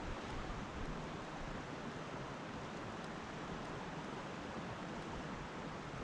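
Steady rush of river water flowing, an even noise with no breaks.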